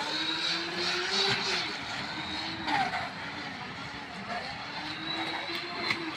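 Joysway US-1 RC speedboat's brushless electric motor whining under way, with water rushing off the hull. Its pitch drifts up and down a little with the throttle.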